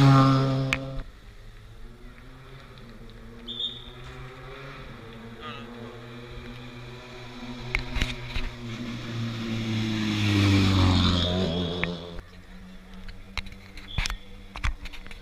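Ford Fiesta rally car going past close by, its engine note dropping in pitch and dying away within about a second. About ten seconds in, another vehicle's engine swells up and goes past, falling in pitch, followed by a steady low engine hum.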